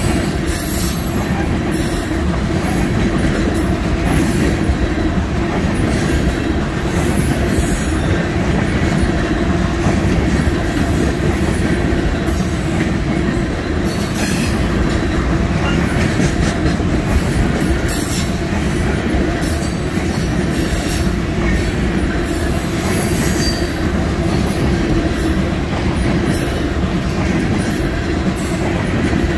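Freight train of rail tank cars rolling past close by: a steady rumble of steel wheels on the rails, with clicking over the joints and high wheel squeal coming and going.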